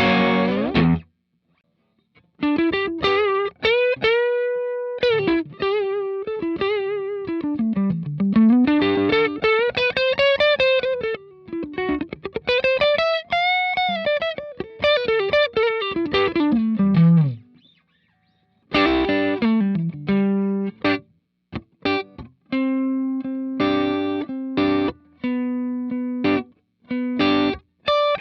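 Electric guitar played through a Cort x Moollon CMV15 amp. A strummed chord cuts off, then a single-note lead line follows with bends and vibrato and a long held note about four seconds in. After a short break it goes to choppy, short chords.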